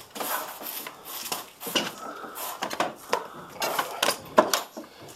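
Irregular clanking and knocking of a snowmobile's rear suspension skid frame as it is worked by hand into a new studded track, with a sharper knock near the end.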